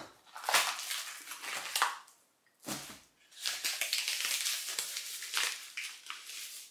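Protective packaging being pulled off and unwrapped by hand, rustling and crinkling in two stretches with a short pause between.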